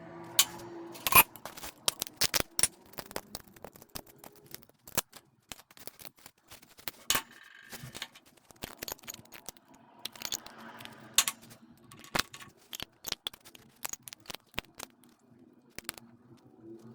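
Irregular clicks, clinks and scrapes of metal parts and hand tools being handled while a welding ground clamp is worked on, with a few louder knocks.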